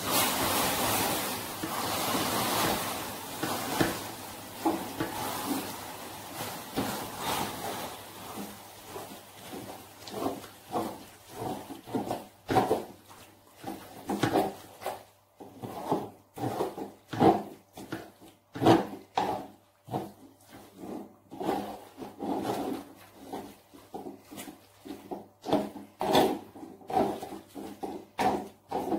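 Wooden spatula stirring and scraping a sticky grated mixture in caramelised sugar syrup around an aluminium wok, with a wet, sizzly stirring noise at first that turns into separate rasping strokes, roughly one or two a second, from about ten seconds in as the mixture cooks down toward dry.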